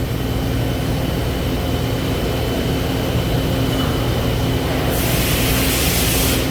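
Citizen K16E CNC Swiss lathe running, its live tool spinning at 4,000 RPM: a steady hum with a thin high whine. About five seconds in, a burst of hiss starts and cuts off suddenly near the end.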